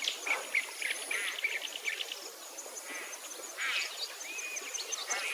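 Several birds chirping and calling in quick, short notes, over a steady, rapid high-pitched trill.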